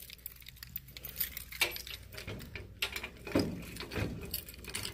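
A bunch of keys on a keyring jangling in hand, with many small, sharp metallic clinks, as a key is brought to the cabinet's lock.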